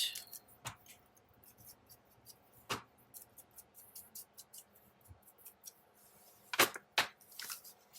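Small scissors snipping paper in short, quick cuts, trimming closely around the petals of a paper flower die cut, with a few louder snips about three seconds in and near the end.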